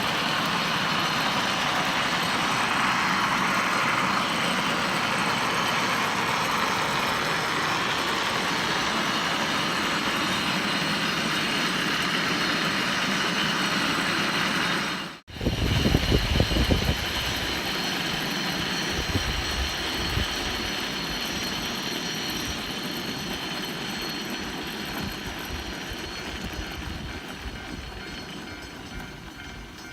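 Funicular cable car on the Ikoma Cable Line running along its rails, a steady rumble. It cuts off abruptly about halfway through and is followed by a burst of low thumps, then the sound fades away toward the end.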